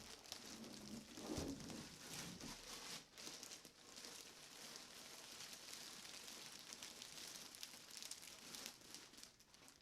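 Plastic wrapping around a PC case crinkling and rustling in irregular crackles as it is handled and pulled about.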